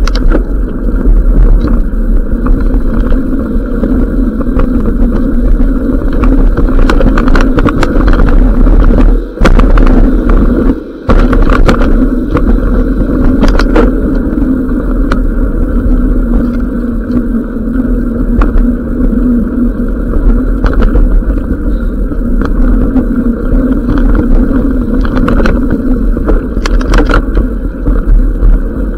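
Mountain bike riding down a dirt singletrack: a steady rumble of tyres and motion on the trail, with scattered clicks and rattles from bumps. The rumble drops out briefly twice near the middle.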